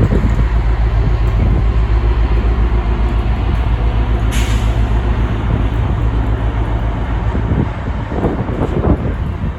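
Freight train hauled by a Class 60 diesel locomotive passing close by, with a deep, loud, steady rumble. There is a short hiss about four seconds in, and the rumble eases off near the end.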